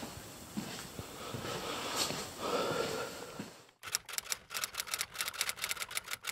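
Faint knocks and handling noise in a small room, then, just under four seconds in, a fast run of typewriter key clacks, about eight a second: a typewriter sound effect.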